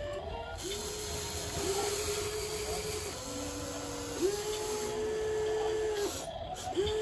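Remote-control toy excavator's small electric motors whining in spurts of one to two seconds, starting and stopping over and over, with the pitch stepping between motors as the boom lifts, the cab swings and the arm lowers.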